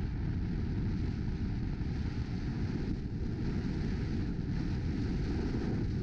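Steady wind buffeting on a camera mounted on the front of a four-wheel drive, mixed with the low rumble of the vehicle driving over beach sand.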